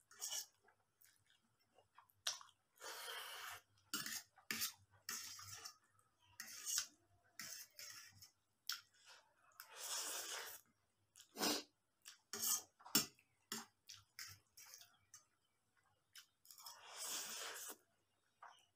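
Spicy instant ramen noodles slurped and chewed from a fork, in several roughly one-second slurps. Short clinks and scrapes of a fork on a steel plate come between the slurps.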